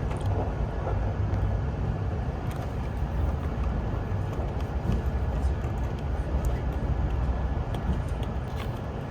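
Kintetsu limited express train running, a steady low rumble heard inside the carriage, with a few faint small clicks.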